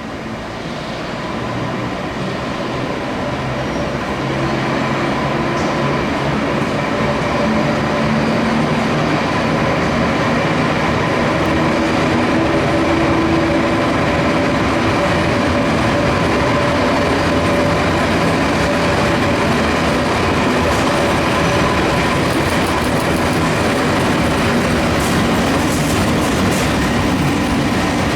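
London Underground battery locomotives running through the station with their train. The rail noise and wheel clatter grow louder over the first few seconds, then hold steady.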